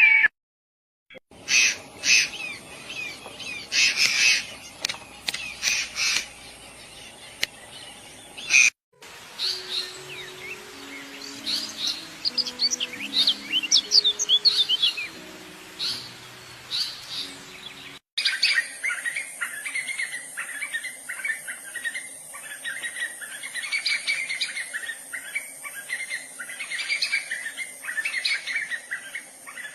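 Songbirds chirping and trilling in quick short calls, in three separate recordings joined by abrupt cuts about nine and eighteen seconds in. A few low held notes sound under the middle part.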